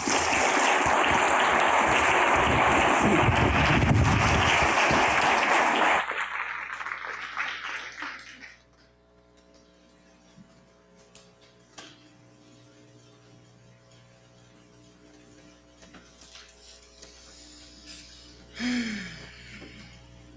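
Congregation applauding for about six seconds, then dying away to a quiet hall with a faint steady hum.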